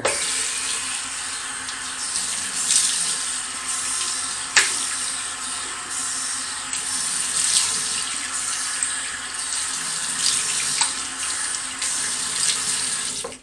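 Bathroom sink tap running cold water, with splashes as water is scooped onto the face to rinse off shaving cream; the flow stops abruptly at the end.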